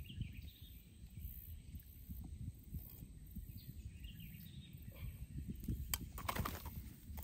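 Outdoor wind buffeting the microphone as an uneven low rumble, with faint bird chirps now and then. A brief crackle comes about six seconds in.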